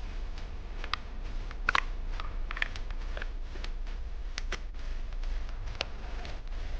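Scattered light clicks and taps of small plastic parts being handled and pressed together, over a steady low hum.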